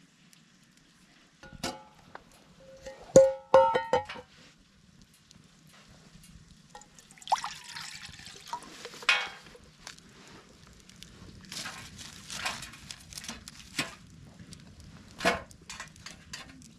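Several sharp clinks of hard tableware or cookware with brief ringing notes, then two stretches of splashing hiss as liquid is poured, with scattered light clicks.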